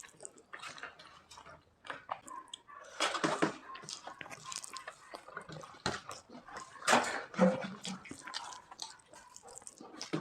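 Scattered small wet clicks and clinks of food and utensils being handled, with louder flurries about three and seven seconds in.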